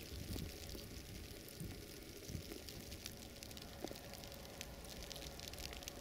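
Outdoor ambience: a gusty low rumble of wind on the microphone with faint, irregular crackling and ticking over it.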